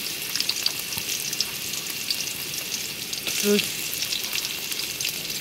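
Chopped onions frying in hot oil in a pot: a steady sizzling hiss with many small crackles and pops.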